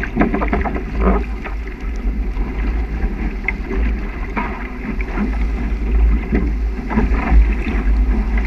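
Shallow-water waves splashing and slapping around a small sailing dinghy's hull as the sailor wades beside it, with a heavy low rumble of wind on the microphone.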